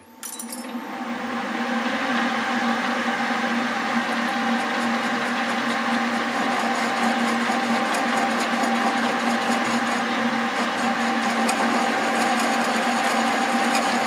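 1964 Colchester Bantam lathe switched on with a click, spinning up over about two seconds, then running steadily with a constant mechanical hum. The chuck drives a bar between centres through a homemade lathe dog.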